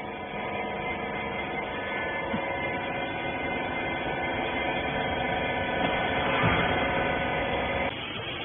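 Industrial rag baler's electric motor and hydraulic pump running with a steady hum; its higher tones cut out near the end.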